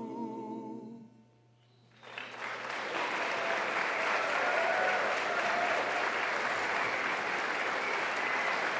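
The barbershop quartet's final sung chord ends about a second in, followed by a second of near silence, then an audience bursts into steady applause, with a few voices calling out in the crowd.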